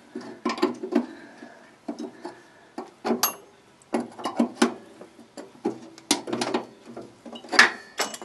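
Wrench working a tight metal line fitting loose: irregular metallic clicks and taps as the wrench is turned a little at a time and refitted, several a second, with louder knocks about 3 s in, about 6 s in and near the end.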